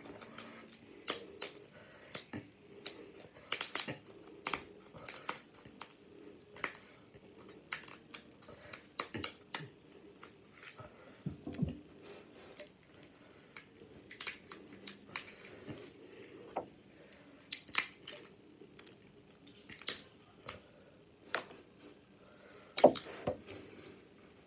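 Scissors snipping through crab-leg shells, then the shells being cracked and pulled apart by hand: a run of sharp clicks, snaps and crunches, the loudest snap near the end.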